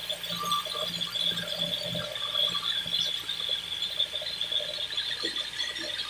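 Horizontal band sawmill running, the blade giving a steady high-pitched whine over a low machine hum, with a few light knocks of timber being handled.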